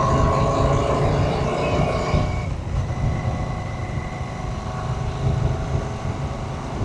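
Royal Enfield Shotgun 650's 648 cc parallel-twin engine and exhaust running under way, a steady pulsing low rumble that gets a little quieter after about two seconds.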